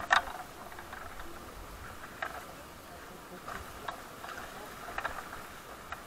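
Scattered light knocks and clatters as people climb into an inflatable raft among loose paddles lying on its floor. The sharpest knock comes right at the start, followed by a few smaller ones spaced about a second apart.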